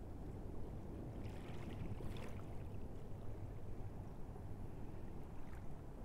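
Shallow water washing up over wet sand and draining back, with a steady low rumble underneath; the wash swells to a brighter hiss about one to two seconds in.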